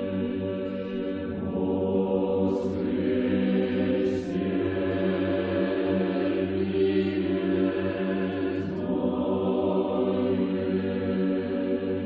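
Orthodox choral chant: voices singing long, held notes over a steady low drone.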